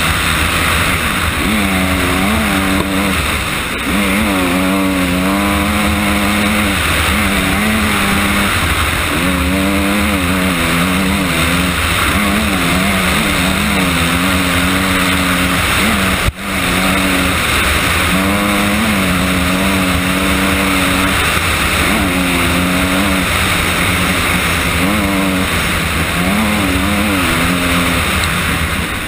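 Honda CRF250R's single-cylinder four-stroke engine revving up and down again and again as the dirt bike is ridden hard along a gravel track, over a steady rush of noise. There is a sharp click with a brief dropout about halfway through.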